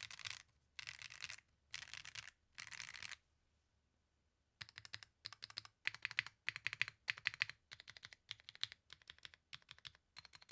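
Typing on a Tata80 custom mechanical keyboard with WS Aurora Pink linear switches on a polycarbonate plate. Quick bursts of keystrokes fill the first three seconds, then after a pause of about a second and a half the keys are struck in a steady rhythm, a little over two presses a second.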